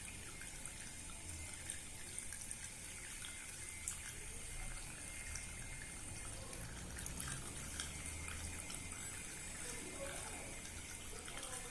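Fuel ethanol pouring steadily from a 5-litre jug through a funnel into an ecological fireplace's burner reservoir, a faint, even trickle of liquid.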